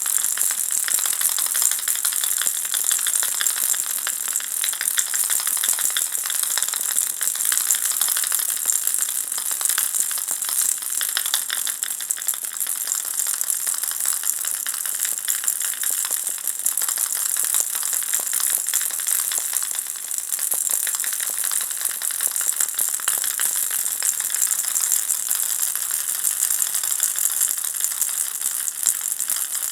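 Ball-shaped baby rattle with small balls inside being shaken without pause, a dense, steady stream of fine clicking and rattling.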